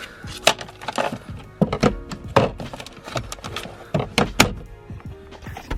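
A string of sharp knocks and clunks, about eight, as parts are put back into the car's interior after the cabin air filter change, over background music.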